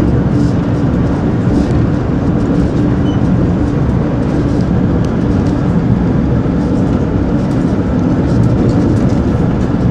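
Renfe AVE high-speed train running, heard from inside the passenger car: a loud, steady rumble of wheels, track and air noise with a faint low hum.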